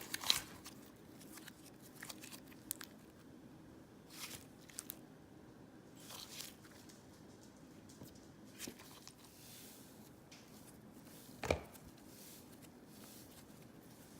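Slime being handled and squeezed, making faint scattered sticky clicks and crackles, with one louder pop about eleven and a half seconds in.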